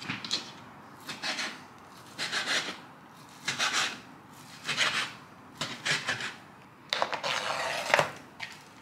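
Chef's knife chopping turkey bacon on a cutting board, about one cut a second, then near the end a longer scrape as the knife blade pushes the chopped bacon off the board into a bowl.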